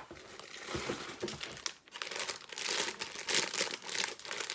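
Plastic LEGO parts bags crinkling as they are handled and pulled from the box, a continuous crackle that gets louder about two seconds in.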